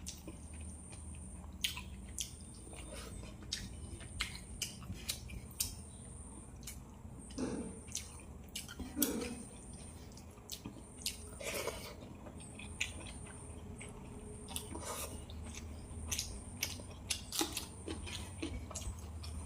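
Close-miked eating: wet chewing and mouth smacks with irregular sharp clicks.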